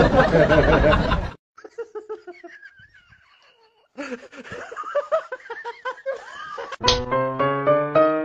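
People laughing and chuckling between clips, with a loud burst of sound cut off about a second and a half in and music with distinct piano-like notes starting near the end.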